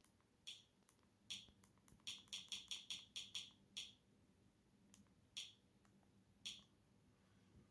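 Faint short clicks of a remote control's buttons being pressed, about a dozen, with a quick run of six or so in a second and a half near the middle, as the on-screen menu is stepped through.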